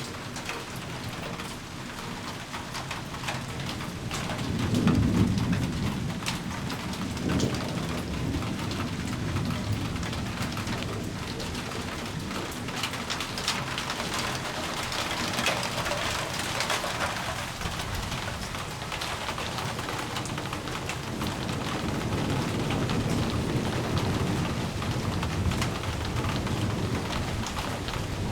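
Thunderstorm: steady rain falling, with low thunder rumbling about five seconds in and building again in the last third.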